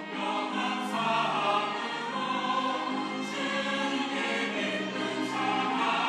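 Mixed church choir of women and men singing a sacred anthem in parts, holding sustained notes with no breaks.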